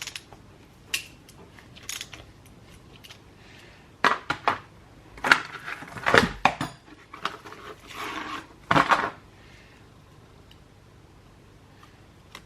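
Metal tools and engine parts being handled on a workbench: a few light clicks, then several seconds of clattering and knocking that stops about nine seconds in.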